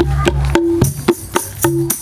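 Buskers' instrumental intro to a sholawat song: a quick, steady percussion beat with held deep bass notes, and tambourine jingles coming in about a second in.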